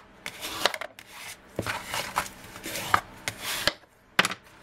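Stiff cardstock box being folded and handled by hand: paper rubbing and sliding, with several sharp taps as the card is flipped and pressed down on the mat.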